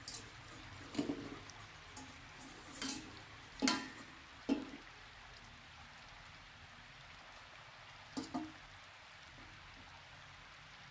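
Wire whisk clinking and knocking against a stainless steel pot as dry flour and cocoa are stirred: a handful of sharp metal knocks at irregular intervals in the first five seconds, the loudest about four seconds in, then a quick double knock about eight seconds in, over a faint steady background.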